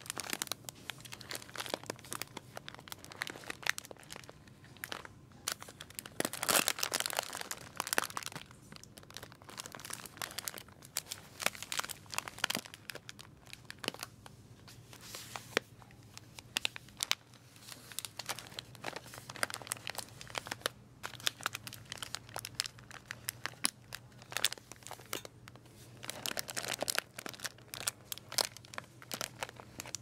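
Plastic bags of Purina Cat Chow dry cat food crinkling and rustling as fingers press, pat and handle them on a store shelf. The crinkles come in uneven spells, loudest a few seconds in and again near the end.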